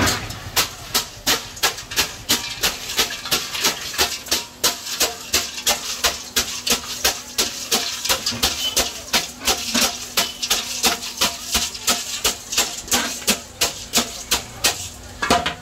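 A spoon knocking against a steel mixing bowl, about three quick metallic clinks a second, as atho noodles are tossed and mixed by hand.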